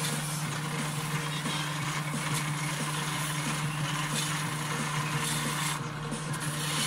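Steady low mechanical hum of a machine running, with faint regular ticks.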